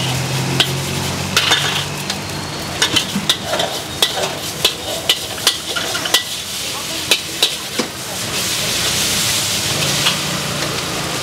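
Char kway teow stir-frying in a large blackened wok over high heat. A metal wok spatula scrapes and strikes the wok again and again, with many sharp clacks over a steady sizzle. The sizzle swells brighter near the end.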